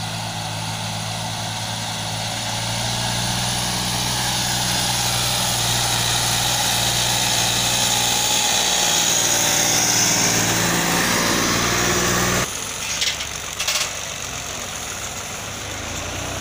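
New Holland 3630 tractor's diesel engine running as it drives up pulling a loaded sugarcane infield trailer, growing louder as it approaches. About three-quarters of the way through, the sound drops suddenly to a lower level, and a couple of sharp clicks follow.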